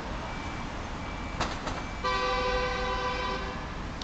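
A double-decker bus's horn giving one long toot of about a second and a half, starting about two seconds in. A faint reversing beeper repeats underneath.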